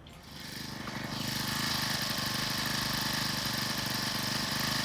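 An engine comes up over the first second or so and then runs steadily at an even speed.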